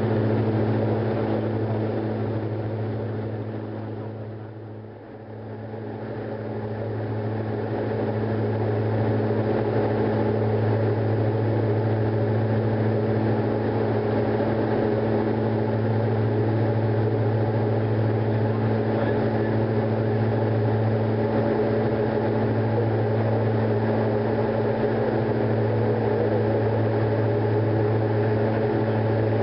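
Diamond DA42 Twinstar's twin engines and propellers droning steadily, heard from inside the cockpit in flight. The drone dips briefly about four to five seconds in, then returns at full strength.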